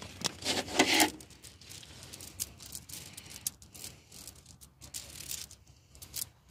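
Honda CB 125 E's roller drive chain rattling and clinking as it is handled and lifted out of a plastic container. The links give a run of irregular metallic clicks, loudest about half a second to a second in.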